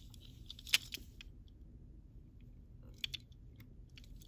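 Two diecast Matchbox Cadillac Escalade toy cars handled in the fingers: a few sharp clicks and taps as the small metal bodies and plastic wheels knock together. The loudest click comes about three quarters of a second in, with a quick cluster of smaller ones about three seconds in.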